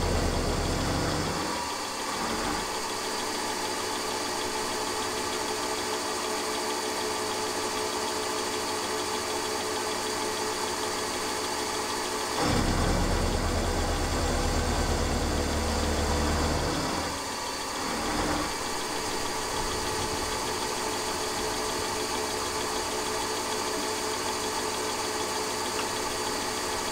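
Milling machine running, its end mill cutting a radius into the corner of an aluminium plate held on a rotary table. A steady motor hum with a cutting noise on top, swelling to a deeper, louder rumble for a few seconds about halfway through.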